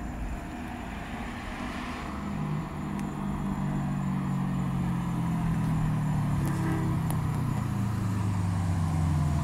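Car with its muffler deleted, its exhaust note coming in about two seconds in and growing louder as it approaches, the pitch sagging slightly as it cruises.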